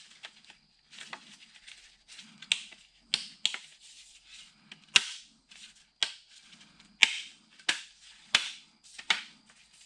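Plastic air box parts and snorkel of a Porsche 987 Cayman clicking and knocking as they are handled and pushed into place: a dozen or so sharp, irregular clicks, the loudest from about five seconds in.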